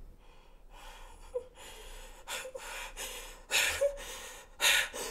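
A woman crying: a run of gasping, shaky sobbing breaths with brief catches of voice, louder toward the end.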